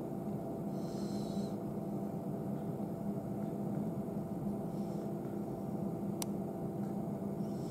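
Steady low hum from a bottom-combustion boiler burning wheat, with a short faint hiss about a second in and a single sharp click near six seconds.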